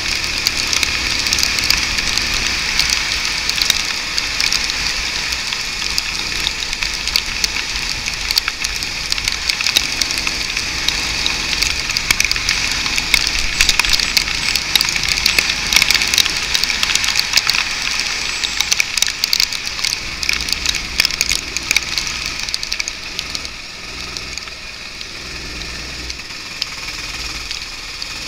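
Go-kart running on a wet track, heard from a camera mounted on the kart: a steady hiss of spray and wind full of rapid crackling clicks, with the engine faint beneath. It gets quieter about 23 seconds in.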